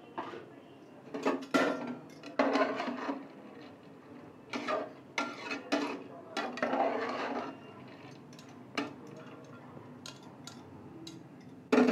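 Metal ladle stirring soaked lentils and boiled beans in an aluminium pressure cooker, scraping and clinking against the pot in irregular clatters, with a sharp clank near the end.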